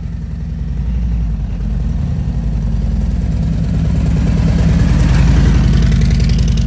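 Harley-Davidson Road Glide Special's V-twin engine running as the motorcycle pulls away at low speed and passes close by. It grows louder to a peak about five seconds in, then begins to fade.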